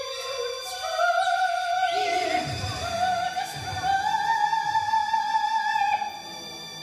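Soprano singing one long held high note into a microphone, the pitch slowly rising before it cuts off about six seconds in, over steady high electronic tones. A falling glide sweeps down through the sound about two seconds in.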